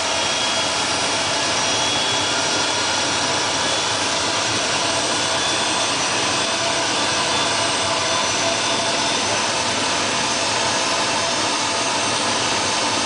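Solar Saturn gas turbine running steadily on a test run after overhaul: a loud, even rush of noise with a steady high whine on top.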